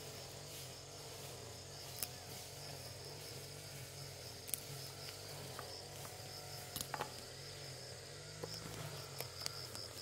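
Faint, steady high-pitched insect chirring, with a few light clicks about two, four and a half, and seven seconds in.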